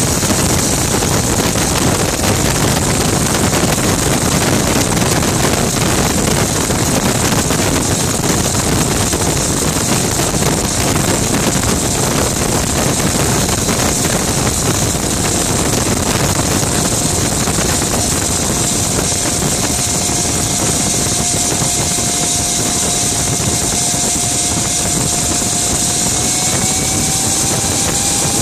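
Gas turbine of a Rover Jet 1 recreation running under way, heard from the cockpit: a steady loud rushing with a high whine. A thin tone in it rises a little near the end.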